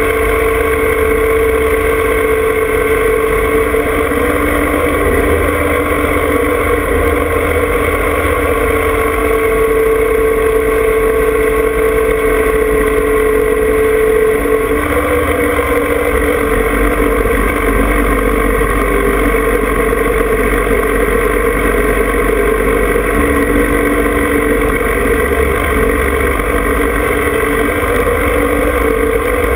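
John Deere 2305 compact tractor's three-cylinder diesel engine running steadily as the tractor drives, heard close up, with a slight change in its note about halfway through.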